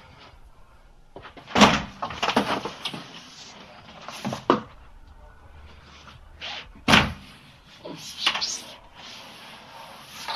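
Bodyfall sound effects: a body hitting the floor with heavy thuds. There is a loud thud about one and a half seconds in, another near four and a half seconds and a third about seven seconds in, each followed by scuffling and clothing rustle.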